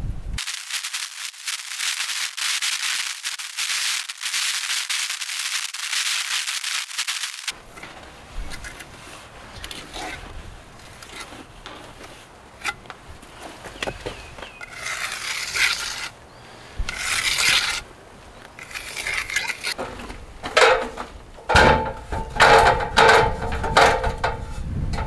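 Hand work on a stone wall: about seven seconds of steady scraping, then scattered knocks and short scrapes of stone. Near the end, loud clanks with a ringing metallic tone as an aluminium ladder is handled.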